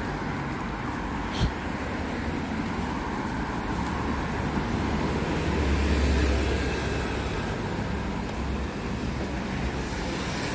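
Street traffic with a steady rumble of passing cars. One vehicle passes close about halfway through, its low rumble swelling and fading. There is a single short knock just over a second in.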